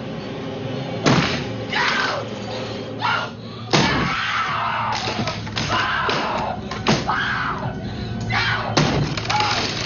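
An axe repeatedly chopping through a wooden door, each blow a sharp splintering crash, with a woman screaming in terror between the blows, over background music.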